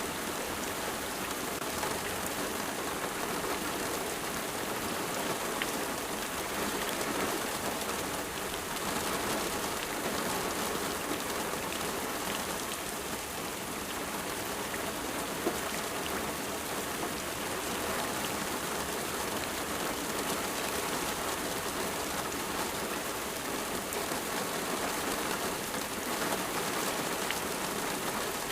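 Steady rain falling on a surface, a dense even patter with scattered individual drop ticks.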